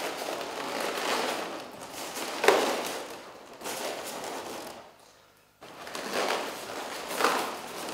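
Inflated latex balloons rubbing and squeaking against each other as long twisted 260 balloon loops are pushed into a cluster of round balloons. A sharper squeak comes about two and a half seconds in and another near the end.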